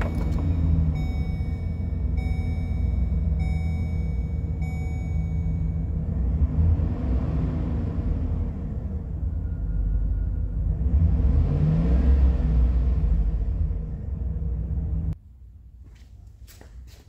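Chevrolet Express 2500 van's V8 engine running just after starting, heard from the driver's seat, with a warning chime ringing four times in the first few seconds. The engine is revved up twice, about seven and twelve seconds in. Near the end it drops to a much quieter steady idle with a few ticks.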